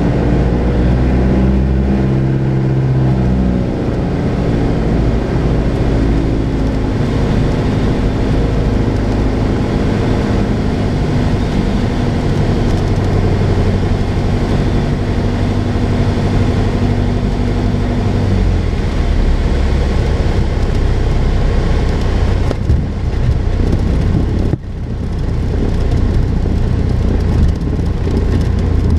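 Piper Cherokee 180's four-cylinder Lycoming engine and propeller heard from inside the cabin, droning at reduced power on a landing approach, its pitch easing down in the first few seconds. Later the engine tone fades into a steady rumble as the plane rolls out on lake ice.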